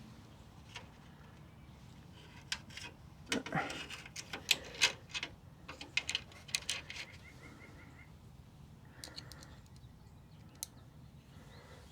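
A quick run of sharp clicks and knocks from small metal hardware being handled and fitted while AE86 grille screws and clips are installed, bunched together in the first half, with birds chirping faintly in the background.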